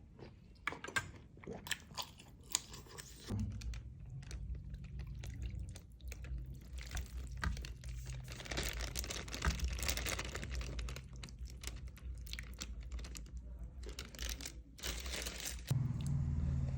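Chewing and eating sounds close to the microphone, with scattered small clicks and crunches. A steady low hum joins about three seconds in.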